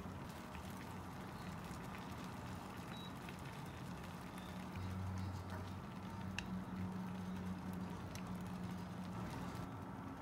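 Pan of tteokbokki simmering on an induction hob: a faint bubbling hiss with scattered small pops over a steady low hum.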